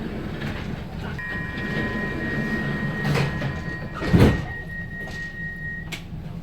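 Stockholm metro train running, heard from inside the car: a steady low rumble, with a steady high whine that comes in about a second in and stops near the end. Two short knocks come partway through.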